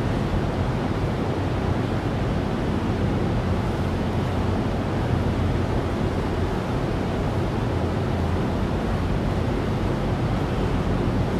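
Large drum fan running: a steady rush of air with a low hum underneath.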